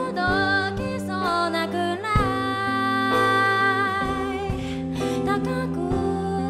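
A woman singing a slow ballad live, accompanying herself on a grand piano, with long held sung notes over sustained piano chords.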